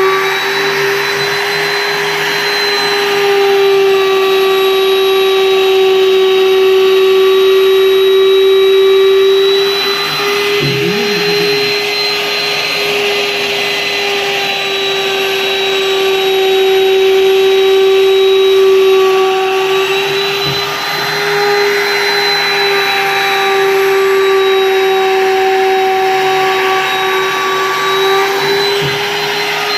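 Electric plunge router running at full speed with a steady high whine while its bit cuts flutes into a wooden panel. The cutting noise swells and eases as the router is pushed along the grooves.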